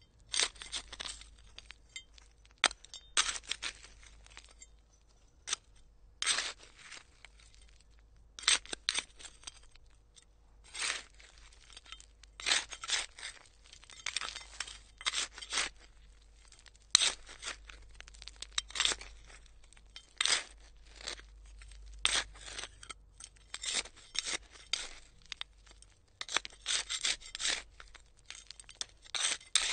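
A hand trowel digging: a run of short, irregular scrapes and stabs, some in quick clusters, with brief pauses between them.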